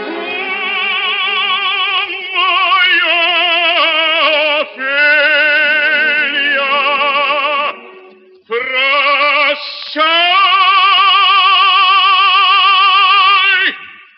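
Operatic baritone singing long sustained notes with a wide vibrato, with a short break about eight seconds in and a final long held note that ends just before the end. The recording is old and narrow-band, with no high treble.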